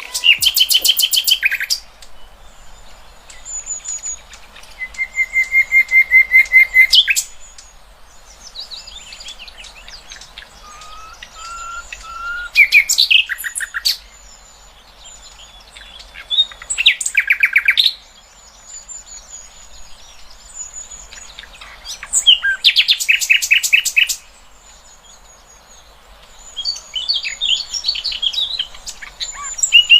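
Songbirds singing in a masteran training recording for competition birds: loud bouts of rapid, rasping trills about every four to five seconds, with a run of even whistled notes near the middle of the first bout gap and thin, high chips and twitters in between.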